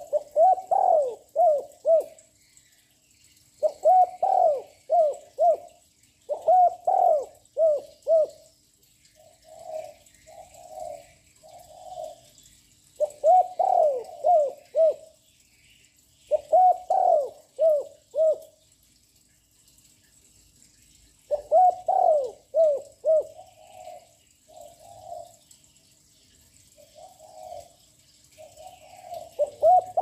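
Young male spotted dove singing its loud territorial coo: phrases of several quick coos repeated about every three seconds, with softer, lower-level coos between some phrases.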